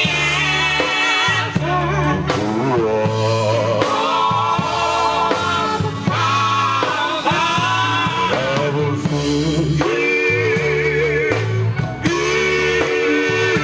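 Gospel vocal group singing with a live band, electric guitar and bass underneath, the voices wavering with vibrato.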